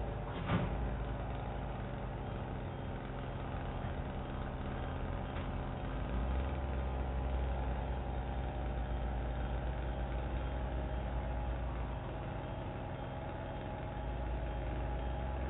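An engine idling steadily with a low hum, and a short click about half a second in.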